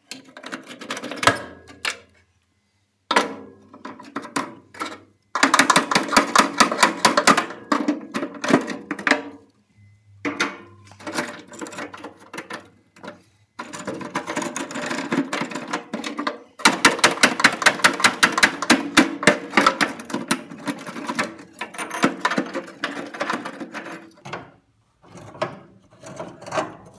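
Rapid metallic clicking and rattling in bursts of a few seconds with short pauses: needle-nose pliers working cotter pins off the ends of a gas grill's steel burner tubes, with the burners rattling in the firebox.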